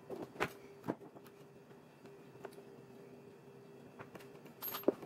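Hand-stitching a leather scabbard: needles, needle-nose pliers and thread handled and drawn through the leather give a few small clicks in the first second and a cluster of them near the end, over a faint steady hum.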